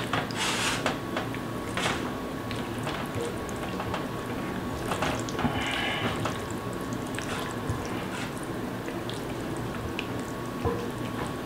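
Hands working olive oil into the skin of a raw whole chicken: irregular short wet rubbing and smacking sounds.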